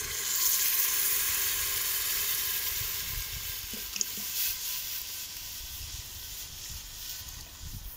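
Cold water poured from a plastic bottle into a cast-iron pot of hot sautéed onion and carrot, the hot oil sizzling and hissing as the water hits it. The hiss is strongest about half a second in and slowly dies down as the pot fills.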